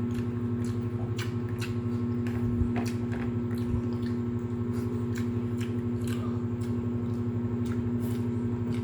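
A person eating, with chewing and lip-smacking clicks two or three times a second over a steady electrical hum.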